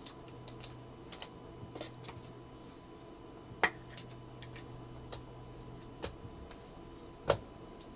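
Trading cards being handled at a table: scattered light clicks and taps, with a few sharper clicks, over a faint steady hum.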